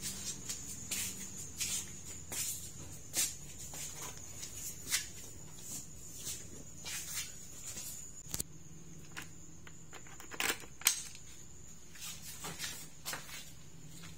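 Footsteps and handling noises: a string of irregular short scuffs and knocks, the loudest a little after ten seconds in, over a steady high-pitched tone.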